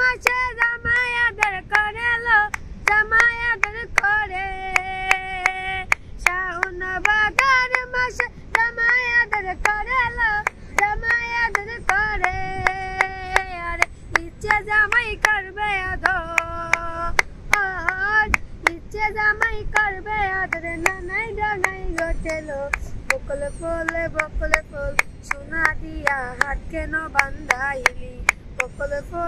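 A young girl singing a Bengali song solo, clapping her hands in a steady rhythm to keep time, her voice holding and bending long notes between the claps.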